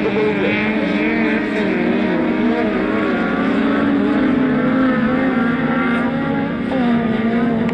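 Engines of several autocross race cars running hard at high revs, their pitch rising and falling as they accelerate and lift off around the dirt circuit.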